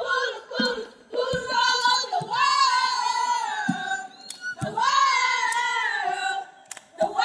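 A group of women's voices chanting in unison in a sing-song style, holding long notes that bend in pitch, with several short low thumps between the phrases.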